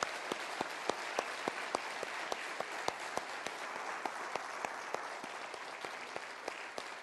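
Congregation applauding in a large room, with one nearer pair of hands clapping steadily and standing out at about three to four claps a second.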